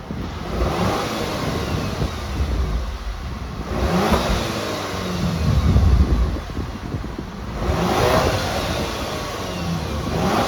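Skoda Yeti 1.8 TSI turbocharged petrol four-cylinder, through its stock exhaust, revved three times with the car standing, each rev climbing toward its 4000 rpm limit and falling back toward idle.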